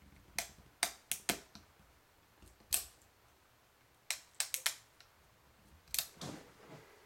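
Ruger Single-Six .22 LR single-action revolver being cocked by hand, its hammer and action giving a quick run of four sharp clicks, then one more click. The run of four repeats about four seconds in, with two more clicks and a duller knock near the end. These are the clicks of the revolver's timing as the hammer comes back and the cylinder turns and locks.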